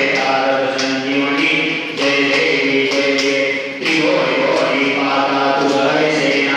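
A group of men and women chanting a devotional song together in unison, led by a man singing into a microphone, with hands clapping along in time.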